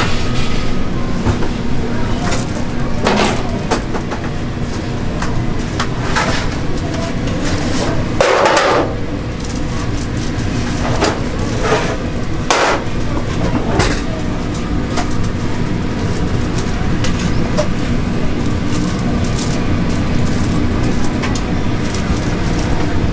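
Kitchen cooking sounds: a steady low mechanical hum with scattered knocks, clicks and scrapes of utensils and cookware. The loudest knock comes a little past the middle, and the knocks thin out near the end.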